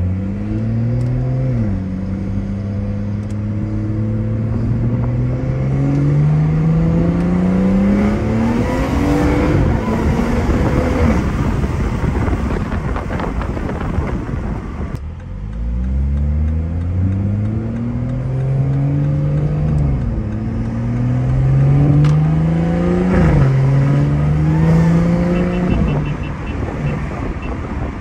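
BMW B58 turbocharged inline-six, heard from inside the cabin, pulling hard through the gears twice. The revs climb steadily with drops at the upshifts, then fall away when the throttle is lifted. Under boost it makes an odd whistle, like a blade of grass blown between the thumbs. The owner puts this down to a boost leak from a loosely clamped charge-pipe coupler and an intake not fully seated on the turbo inlet pipe.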